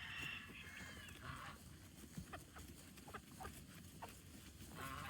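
Faint calls of farm animals: one lasting about a second and a half at the start and a short one at the end, with a few light clicks in between.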